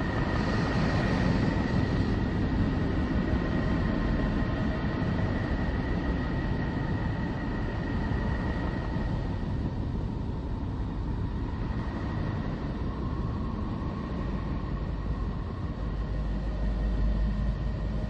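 Neptune's radio emissions converted into sound: a steady, deep rumbling hiss with a thin high tone held above it, the low rumble swelling near the end.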